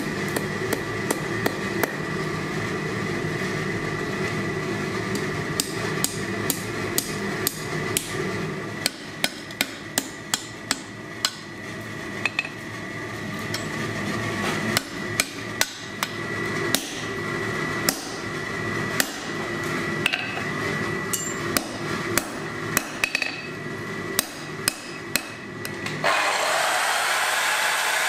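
Repeated hand-hammer blows on hot metal on a steel anvil, coming in quick irregular runs, with a steady ringing behind them. About two seconds before the end, an angle grinder starts up with a steady whir.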